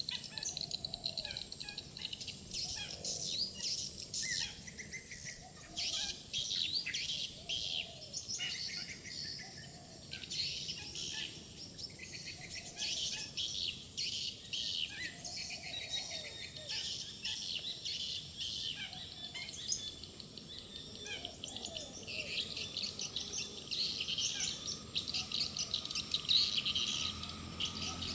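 Many birds chirping and calling at once: quick, overlapping chirps and trills with a few lower calls among them, over a steady high-pitched hiss.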